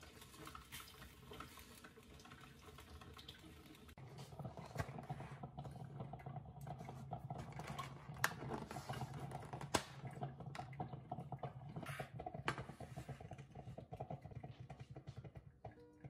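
A clear plastic clamshell pastry container being handled and opened, crinkling and crackling, with a few sharp plastic clicks in the second half. A low steady hum runs underneath from about four seconds in.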